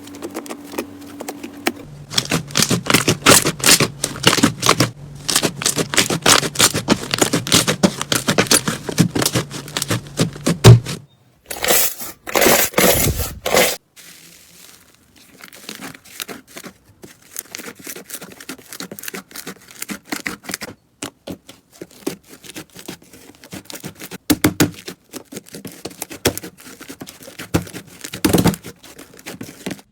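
Slime being pressed and stretched by hand, giving dense, rapid crackling clicks and pops. It comes in several short clips that cut abruptly from one to the next, loudest in the first half.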